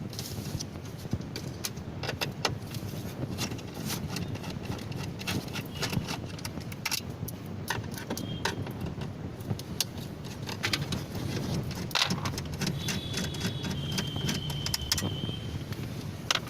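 T20 Torx screwdriver undoing the screws that hold a MediaNav car head unit, with many small metallic clicks and clinks of the tool and screws. A few brief high squeaks come about three-quarters of the way in.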